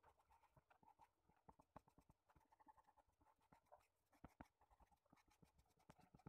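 Faint pencil scratching on drawing paper: a quick run of light strokes and small ticks.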